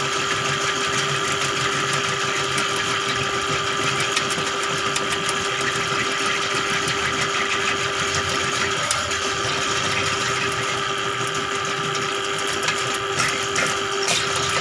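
Motorized drain-cleaning machine running steadily, its electric motor giving a constant whine with a mechanical rattle, as the cable works a clogged drain.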